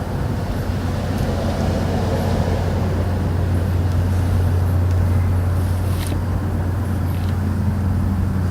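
A steady low drone over a rumbling background, swelling a little around the middle, with a few faint clicks.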